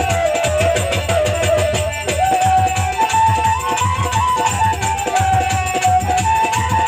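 Instrumental interlude of Bengali Baul folk music: a single melody line stepping up and down between notes over a fast, steady beat of drums and rattling percussion.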